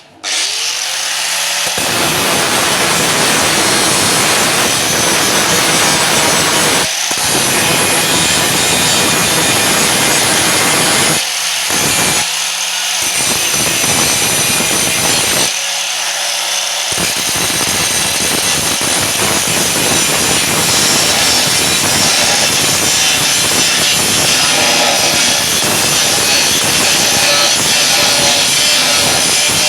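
Angle grinder grinding down welded seams on car-body sheet metal: the motor spins up at the start, then a loud, steady grinding of the disc against the metal, with the disc lifted off the work briefly a few times.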